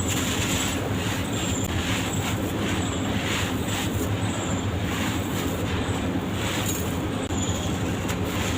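Dry sand-cement blocks being crushed and crumbled, a continuous gritty crunching with fresh crunches every half second or so.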